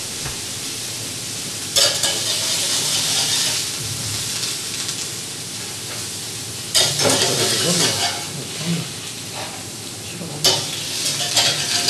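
Thin slices of wine-marinated beef fillet sizzling on a hot ridged grill pan as they are seared rare. The hiss jumps suddenly louder three times, about two, seven and ten seconds in.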